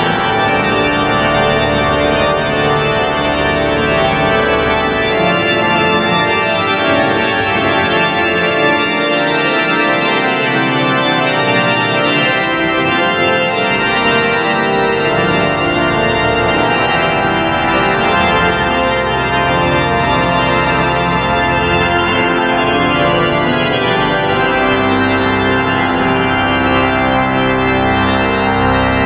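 Organ playing a many-voiced piece in sustained, overlapping lines, steady and loud throughout; the deepest bass drops away for a few seconds around the middle and returns.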